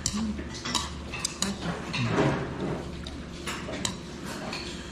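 Cutlery and dishes clinking during a meal: a handful of light, sharp clicks scattered irregularly, several close together in the first second and a half.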